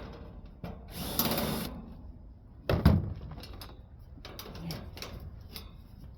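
A power driver briefly backing a screw out of a central air conditioner's sheet-metal cabinet. Then comes one loud metallic knock about three seconds in, followed by scattered clicks and rattles.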